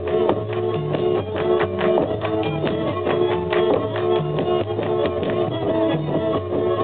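Live folk string band playing a dance tune: a lead fiddle melody over rhythmic chord strokes from the kontra and a double bass line.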